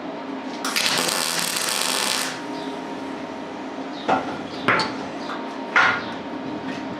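MIG (wire-feed) welder arc crackling for about a second and a half as a steel washer is tack-welded onto a length of rebar. Three sharp metallic clinks follow a couple of seconds later.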